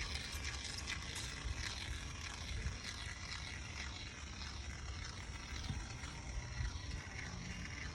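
Adhesive gun laying a bead of glue on ICF blocks, with a steady hiss and faint crackle over a low rumble.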